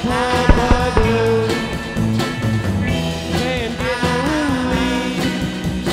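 Rock music with electric guitar, an instrumental stretch between sung lines.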